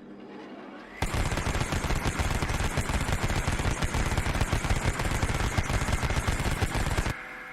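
Machine gun firing one long, rapid, continuous burst of about six seconds that starts about a second in and cuts off suddenly, leaving a fading echo.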